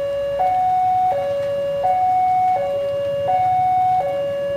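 Electronic railway level-crossing alarm sounding its warning as a train is about to pass, alternating steadily between a higher and a lower tone about every three-quarters of a second.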